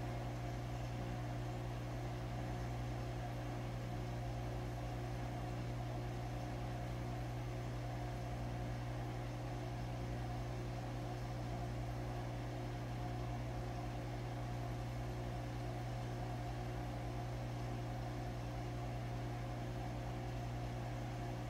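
Steady low electric hum of a reef aquarium's running pump, with a few fainter steady tones above it over a light hiss.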